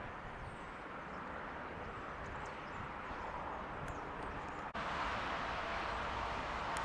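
Steady outdoor background noise with a few faint high chirps. It cuts off abruptly about two-thirds of the way in and comes back a little louder.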